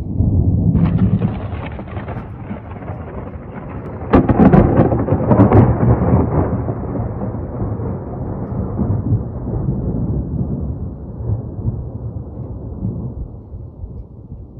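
Thunder rumbling, with a sharp crack about four seconds in that rolls on and slowly fades, during a rainstorm.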